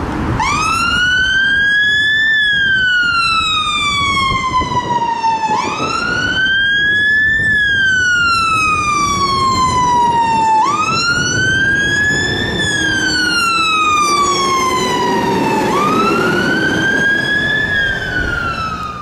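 Fire engine siren sounding a slow wail on an emergency turnout: each cycle rises quickly, then falls slowly, repeating about every five seconds, four times over.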